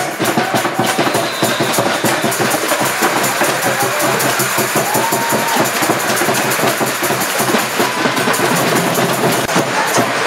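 Loud rhythmic percussion music: drums and shaken rattles or tambourines beating without a break.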